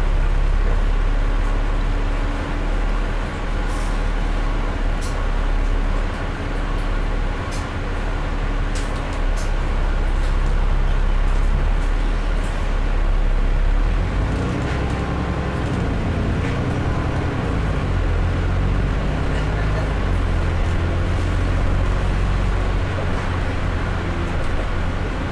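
ADL Dennis Enviro400 double-decker bus's diesel engine running steadily. The engine note changes about halfway through, and there are scattered light clicks.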